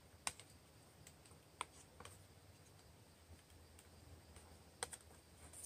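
Near silence broken by about five faint, sharp clicks at irregular moments.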